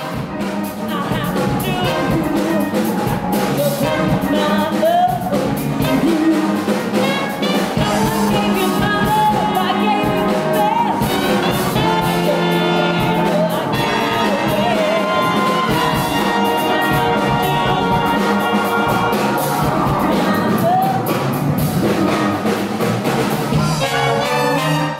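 Live band with a horn section playing: trombone and trumpet over drums, bass and guitar, with a woman singing.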